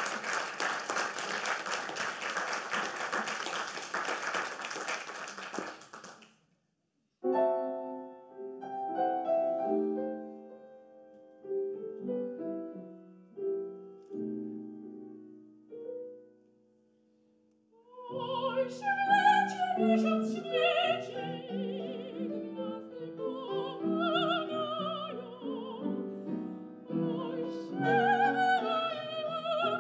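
Audience applauding for about six seconds. After a brief pause, a grand piano plays a slow introduction, and about eighteen seconds in a classical soprano comes in, singing with vibrato over the piano accompaniment.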